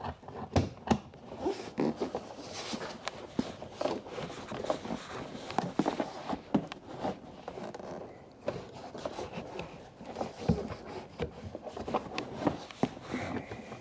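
Hands rerouting a new brake pad wear sensor wire through the front wheel arch: irregular rubbing and scraping, with a number of sharp clicks.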